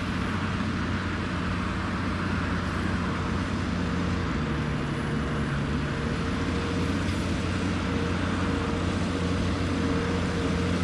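New Holland T7.210 tractor's six-cylinder diesel engine running steadily under load while ploughing.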